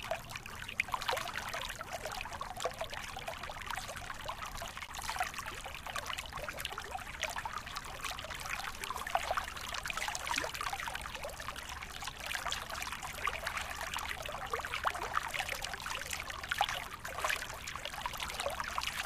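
Waterfall: water pouring and splashing steadily, with a constant patter of small splashes.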